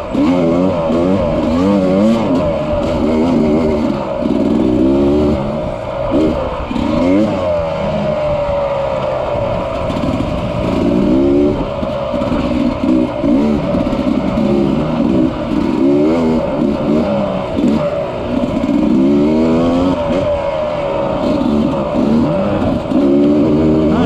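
Off-road dirt bike engine revving up and down, the pitch rising and falling every second or two as the throttle is worked on and off along the trail.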